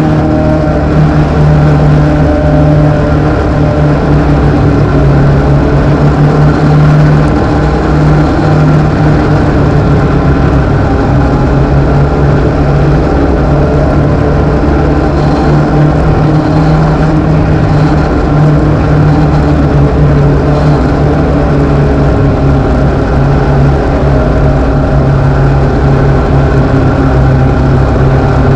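Loud engine of an INEX Legends race car, a motorcycle engine, running steadily as heard from inside the cockpit, its pitch holding nearly constant.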